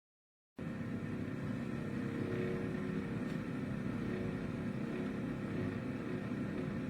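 Air fryer running: a steady fan whir with a low hum, cutting in abruptly about half a second in.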